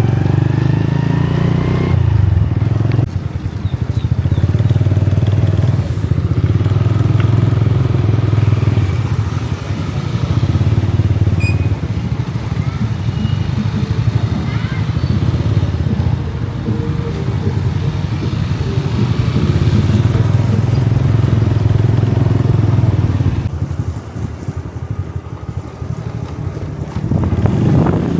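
Riding pillion on a motorbike taxi: the small motorcycle engine running under a heavy, fluttering low rumble of wind and road noise. It eases off briefly about three seconds in and again for a few seconds near the end.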